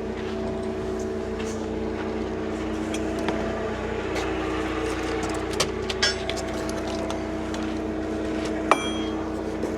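Forklift engine idling steadily, with a few light metal clinks and one sharp ringing clink near the end.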